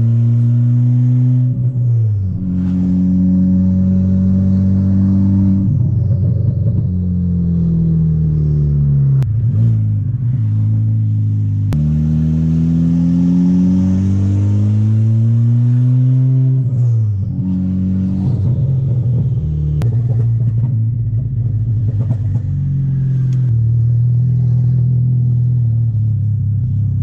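Built MK6 Volkswagen Golf R's turbocharged 2.0-litre four-cylinder pulling hard through the gears. Its pitch climbs under acceleration and drops sharply at each of several gear changes. The engine is running cleanly after the cam adjuster, N205 cam solenoid, timing chain and tensioner were replaced.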